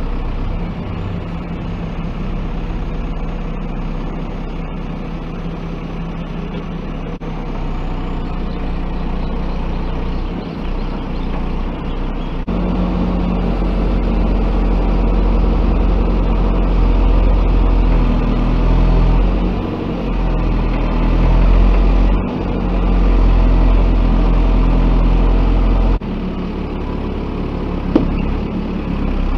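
Diesel engine of a JCB 3DX backhoe loader running steadily while it works, rising to a louder, heavier note about twelve seconds in and easing back a few seconds before the end.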